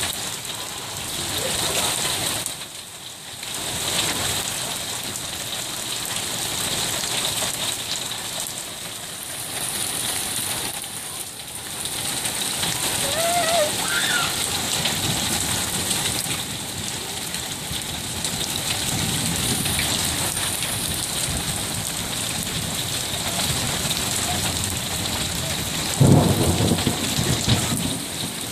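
Steady rain falling on wet concrete and puddles, a constant hiss and patter. A brief loud low rumble comes near the end.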